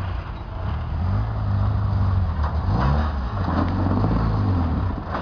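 Jeep engine running under load as the Jeep crawls through a deep dirt rut, its pitch rising in a rev about halfway through, with a few knocks.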